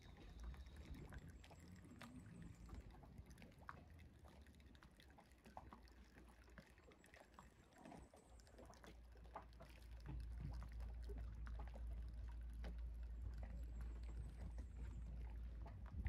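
Near silence: a faint low rumble that grows louder about ten seconds in, with scattered faint ticks.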